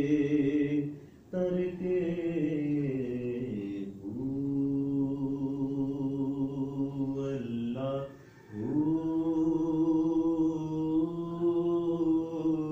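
A man's voice chanting unaccompanied in long held notes of several seconds each, with short breaths between phrases, in the manner of a devotional recitation at the shrine.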